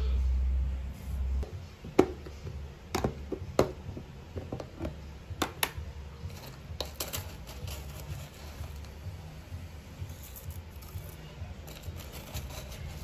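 A metal spoon clinking and knocking against a bowl while stirring moistened oats, several sharp clinks in the first half. Later comes softer scratching and rustling as dry granola is scooped from a plastic box with a plastic measuring scoop and dropped into the bowl. It opens with a brief low rumble.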